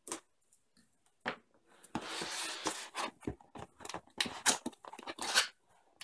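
Cardboard shipping box being opened by hand: its seal sticker tearing and the flap pulled open. A couple of sharp clicks, then a stretch of tearing about two seconds in, followed by a run of short scrapes and taps.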